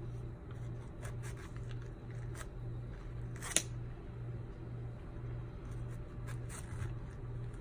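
A small knife scoring the tough rind of a pomegranate: scattered short scratchy cuts and clicks, with one sharp click about three and a half seconds in. A low hum pulsing about twice a second runs underneath.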